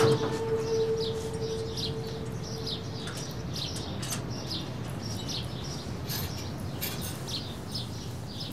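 Small birds chirping over and over: short, falling chirps, two or three a second. A faint steady hum fades away in the first few seconds.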